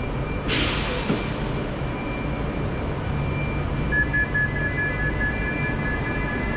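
Platform ambience beside a standing electric train: a steady low hum, a short sharp hiss of air about half a second in, and a high rapid beeping tone that starts about four seconds in.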